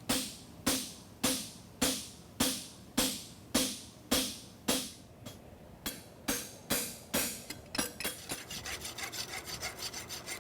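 Farrier's rasp scraping along the edge of a steel horseshoe, in steady strokes about one and a half a second. After about six seconds the strokes quicken, and near the end they become short and rapid. The edge is being dressed and rounded off at the toe.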